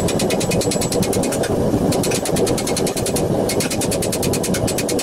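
Rapid light hammer taps on red-hot steel gauntlet plate, about nine a second with two short pauses: the gentle tapping used to tease the knuckles into shape. A steady low noise runs underneath.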